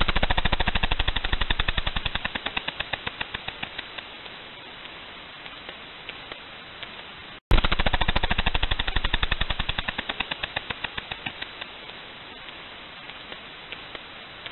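Whale clicking: two rapid click trains, each starting loud and fading over about three seconds, the second beginning about halfway through, with scattered single clicks between.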